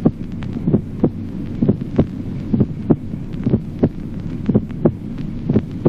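Heart sounds heard through a stethoscope, a regular lub-dub at about one beat a second, with the first heart sound barely perceptibly split into two components. A steady low hum runs underneath.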